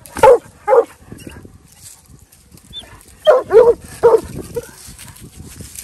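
Young Black and Tan coonhound barking up a tree at a dead-coon drag: two short barks, a pause, then three more about three seconds in. This is a pup in training learning to bark treed rather than just find the coon.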